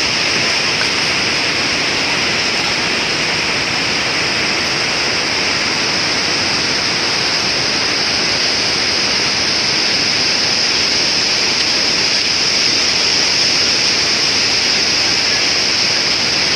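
Parvati River, a fast mountain river, rushing: a loud, steady wash of water noise with a bright hiss and no let-up.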